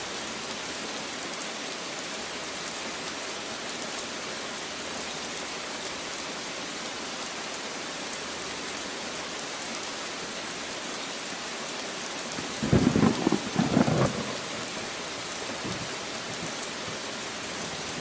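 Rain falling steadily, with a brief, louder rumble of thunder about two-thirds of the way through.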